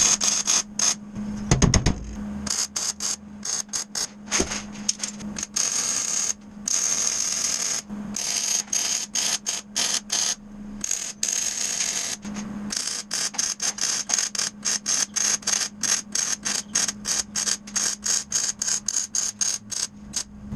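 Electric arc welding on steel strut channel: a rapid crackling and sputtering over a steady hum, in a string of weld runs and tacks broken by brief pauses.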